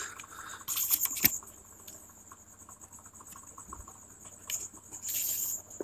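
Faint steady high-pitched chirring of crickets, with a few soft clicks and short rustles close to the microphone, one sharp click just after a second in.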